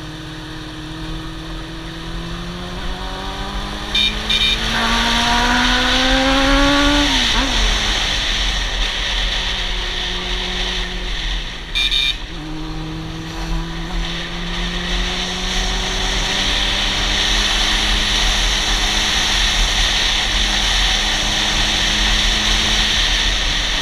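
Honda CB400 Super Four's inline-four engine under way on the road. It revs up steadily to about seven seconds in, drops off sharply, then pulls up again more gently. Wind rushes over the helmet-mounted microphone underneath.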